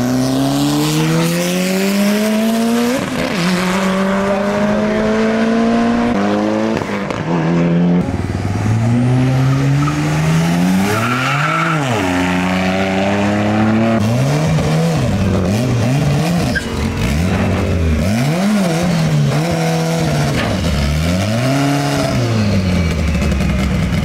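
Car engines accelerating hard at full throttle, the pitch climbing and dropping at gear changes about three and seven seconds in. Later an engine is revved up and down in short blips several times.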